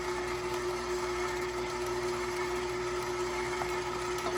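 KitchenAid Professional stand mixer running steadily with a constant hum, its beater turning through cookie dough while flour is added.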